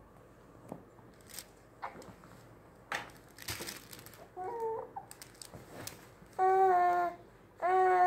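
Infant hiccupping: a few short, sharp hics spread over the first three seconds. Near the end come two loud, held voiced cries of under a second each.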